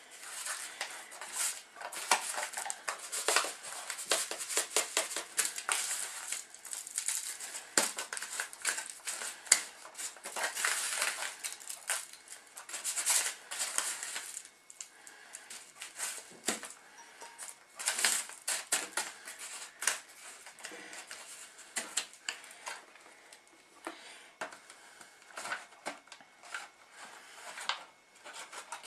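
Chicken fillets being pressed and turned by hand in blended tortilla-chip crumbs in aluminium foil trays: quick, irregular crinkling of the foil and crunching of the crumbs, busiest in the first half and sparser later.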